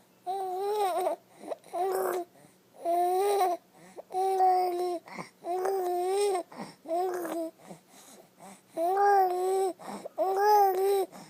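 Baby cooing and babbling: about eight short, fairly even-pitched vocal sounds, each under a second, with short pauses between them.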